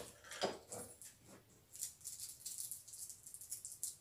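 Faint rustling and scraping of packaging being handled as a parcel is worked open, in scattered short bursts.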